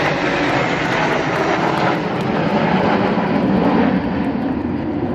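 Jet engine noise from the nine Alpha Jet trainers of the Patrouille de France flying past in formation, a steady rushing sound that grows duller and lower near the end as they move away.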